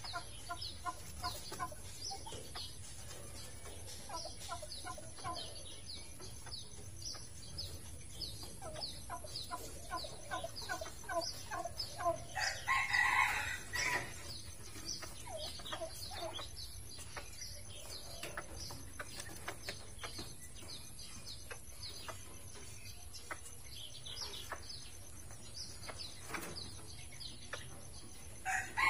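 Repeated short animal calls, several a second, with one louder call lasting about a second and a half about twelve seconds in.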